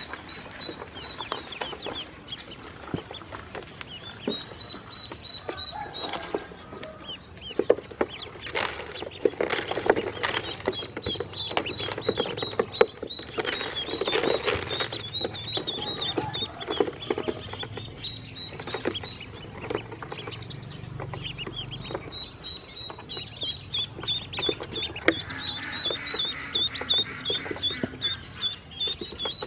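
Ducklings peeping in quick chains of short, high calls, with scattered sharp taps as their bills peck feed off the hard plastic bed of a toy truck.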